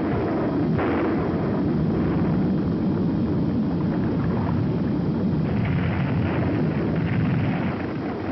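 Volcanic eruption sound effect: a continuous, steady rumble.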